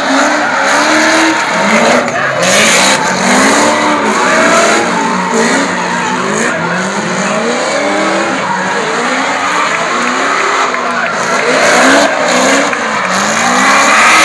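Drift cars' engines revving up and down over and over, the pitch rising and falling many times, with tyres squealing and skidding as the cars slide sideways in tandem.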